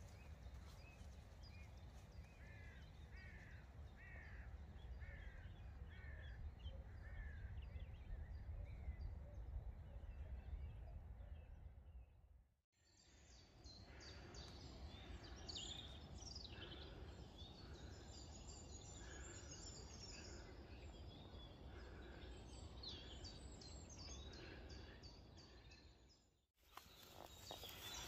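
Faint outdoor woodland ambience: a bird gives a series of about ten falling calls, roughly one every two-thirds of a second, over a low steady rumble. After a brief dropout, small birds chirp and sing in quick short notes, and the sound drops out briefly again near the end.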